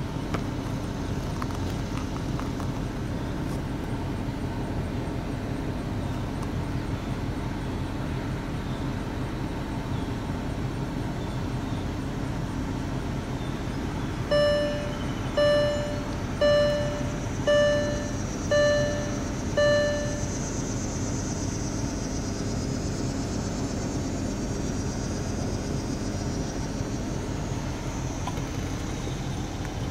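Steady hum inside a vehicle cabin. About halfway through, six identical short electronic beeps sound, roughly one a second.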